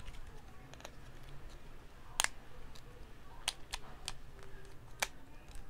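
Hard plastic parts of a Transformers Conehead jet figure clicking and snapping as its joints are worked during transformation: a handful of sharp, irregular clicks, the loudest about two seconds in.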